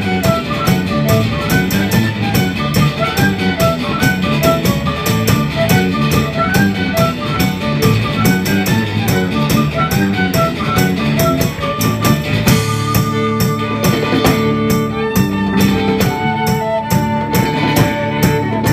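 Irish folk band playing an up-tempo instrumental tune, a fiddle carrying a quick melody over a steady drum beat. About twelve seconds in, the melody changes to longer held notes.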